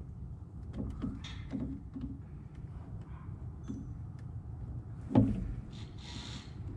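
Light clicks and scrapes of hands working the plastic locking tab on an ignition coil pack's wiring connector, with a louder knock about five seconds in, over a low steady rumble.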